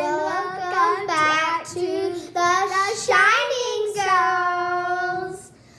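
A child singing a short tune in a high voice, ending on one long held note.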